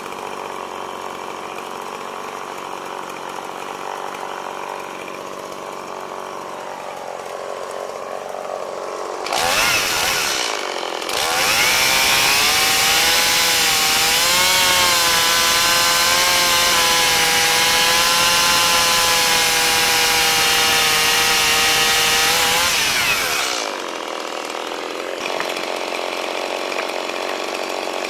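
Stihl two-stroke chainsaw idling, revved briefly about nine seconds in, then run at full throttle for about twelve seconds while cutting into a log, its pitch dipping and wavering under the load, before dropping back to idle.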